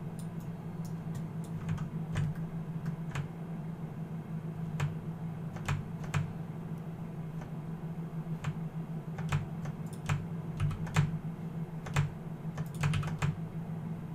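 Irregular clicks of a computer keyboard and mouse, a few at a time, over a steady low hum.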